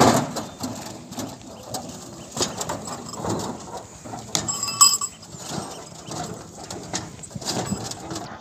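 Bullock cart drawn by two bulls and loaded with granite stones, rolling past on grass: irregular hoof steps, with knocks and rattles from the cart. About halfway through comes a louder knock that rings briefly.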